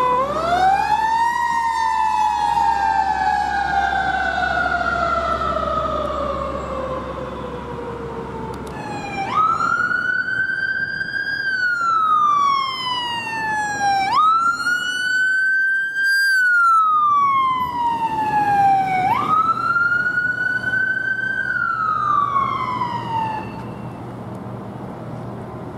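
Emergency vehicle sirens wailing. The pitch rises and then falls slowly over about nine seconds, followed by three quicker rise-and-fall wails, with the last one dying away near the end. A low steady drone sits under the first long wail.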